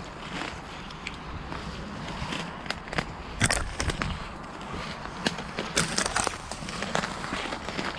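Wind buffeting the microphone as a low rumble, with irregular rustling and crackling and scattered sharp clicks. The loudest crackles come about three and a half and six seconds in.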